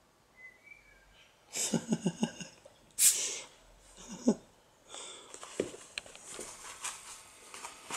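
A kitten sniffing and snuffling right at the microphone, with a quick run of snuffles about two seconds in and a loud sharp snort at about three seconds. Scratchy rustling of paws on fabric follows in the second half.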